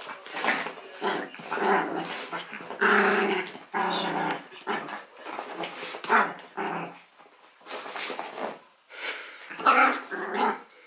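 Small white dog growling and grumbling in a run of short vocal bursts, with an occasional bark mixed in.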